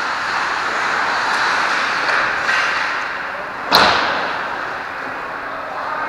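Ice hockey game sound: a steady scraping hiss of skates on the ice, with one sharp crack of a hit, the loudest sound, a little past halfway through.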